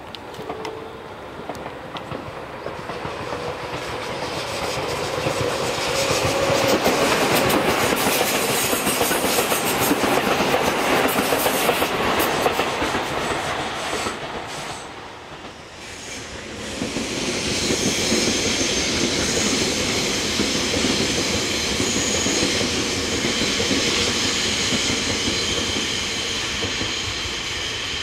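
A Tobu 6050 series electric train passes with a clickety-clack of wheels over rail joints, growing loudest around the middle and fading out a little past halfway. Shortly after, a second electric train, a Tobu 100 series Spacia, approaches with a steady high whine over the rumble of its wheels.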